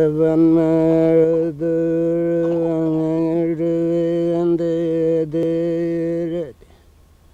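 A man chanting in long held notes on one steady pitch, with short breaks between phrases. The voice slides down and stops about a second before the end.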